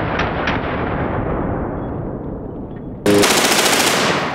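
Full-auto fire from a CMMG MkW-15 rifle chambered in .458 SOCOM. Sharp shots come about three a second at first, the sound then grows duller and fainter, and about three seconds in there is a sudden loud blast of noise.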